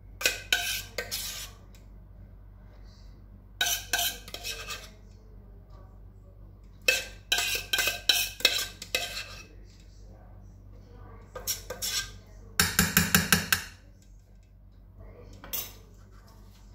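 A metal spoon scraping sauce out of a metal saucepan in several bursts of quick scrapes and clinks. A little before the end it gives a rapid run of about eight taps, the loudest part.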